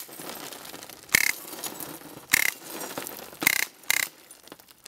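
Glass shattering: five sharp crashes, the first four about a second apart and the last two close together, with tinkling and scraping of shards between them.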